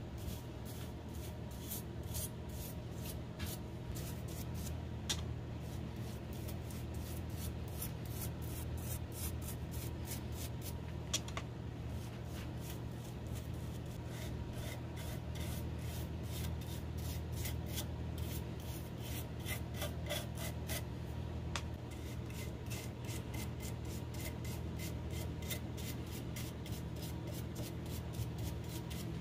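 A brush's bristles rubbing over a maple burl vase as a glossy finish is brushed on, in many short strokes in quick succession, over a steady low hum.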